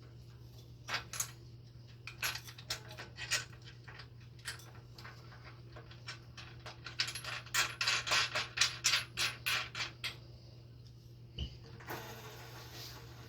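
Light metallic clicks and clinks of a washer, nut and wrench as a drum roller is fastened onto its shaft on a Samsung dryer. The clicks are sparse at first, come in a quick run in the second half, and sit over a steady low hum.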